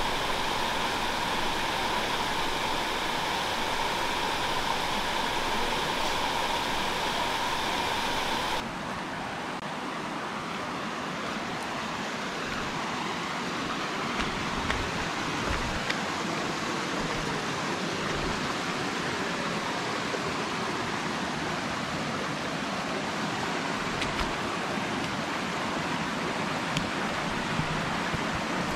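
A small portable circulator fan running with a steady whir for the first eight or nine seconds, stopping abruptly; then a shallow rocky stream flowing with an even rushing sound.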